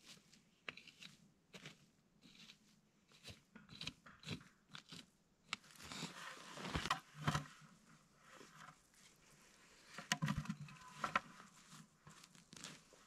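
Dry pine needles and forest duff crunching and scratching as a wooden-handled hand tool rakes and digs into them, then hands push through the needles. The sound is a run of short, irregular crunches, busiest about six seconds in and again about ten seconds in.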